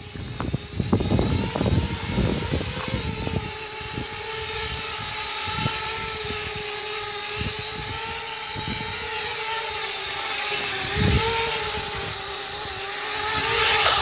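Homemade cardboard quadcopter's electric motors and propellers running with a steady whine as it flies low and sets down, growing louder near the end. A few low thumps come in the first couple of seconds.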